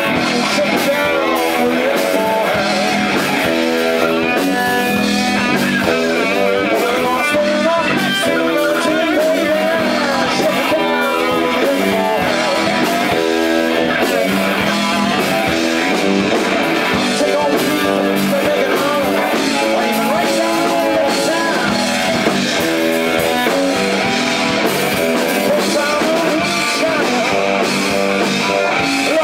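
Live rock band playing loud, with electric guitar to the fore and a male singer's voice over it.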